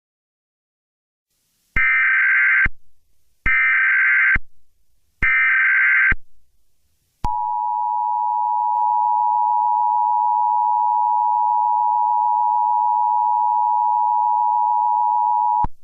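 Emergency Alert System tones: three short bursts of buzzy SAME digital header data, each about a second long, then the EAS two-tone attention signal, held steady for about eight seconds before it cuts off.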